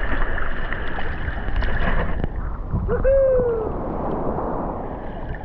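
Seawater sloshing and lapping against a waterproof action camera held half-submerged at the surface, a steady wash of water noise. A short voice-like call rises and falls about three seconds in.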